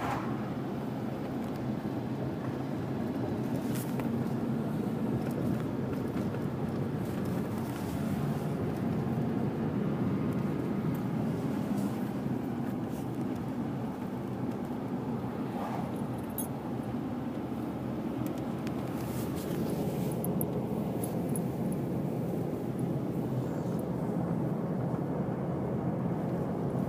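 Steady drone inside the cab of a 2008 Dodge Ram 2500 pickup cruising along, its Cummins straight-six turbo diesel running under a low, even road noise.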